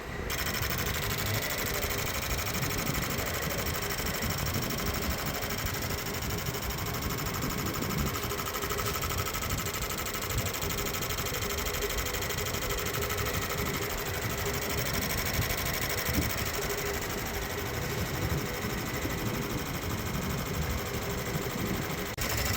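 Fuel injector test bench running an idle flow test on four fuel injectors. The injectors fire together in a rapid, steady mechanical chatter over the bench's running pump.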